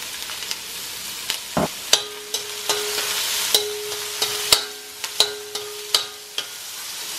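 Chopped onion sizzling in hot olive oil in a stainless steel pan while it is stirred, with the utensil knocking against the pan about ten times from about two seconds in; the pan rings briefly after several of the knocks.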